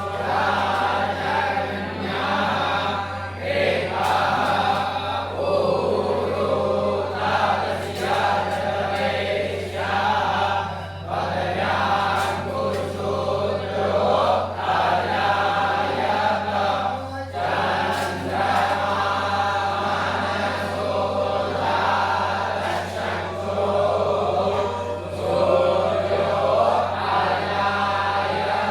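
A group of voices chanting mantras together in unison, phrase after phrase, over a steady low hum.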